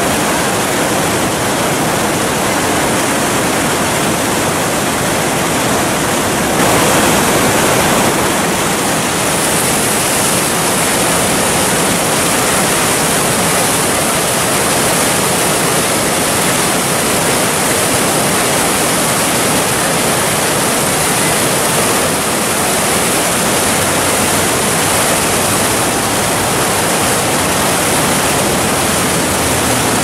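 Whitewater rapids rushing steadily in a loud, even roar of churning water, swelling slightly about seven seconds in.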